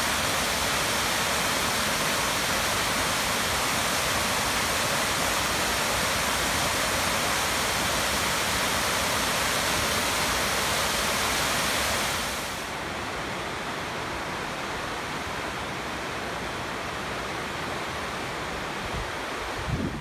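Waterfall rushing: a steady, even wash of falling water that drops a little in level about twelve seconds in.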